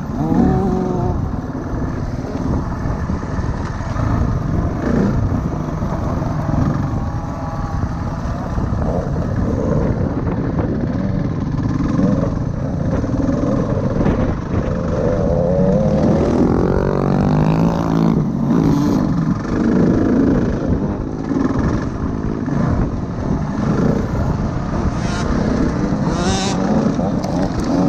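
Dirt bike engine running at speed on a motocross track, its revs rising and falling as the throttle opens and closes, with a long climb in pitch partway through.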